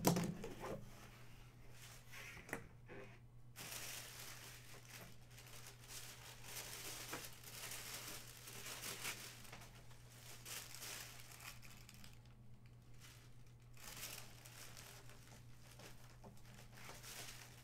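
Packaging being unwrapped by hand: a long run of crinkling and tearing of wrapping, with a brief lull about twelve seconds in, over a steady low hum.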